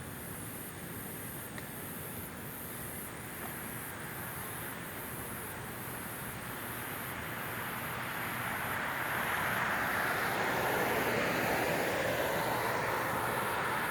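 Noise of a passing vehicle, a steady rushing sound that slowly swells, loudest near the end.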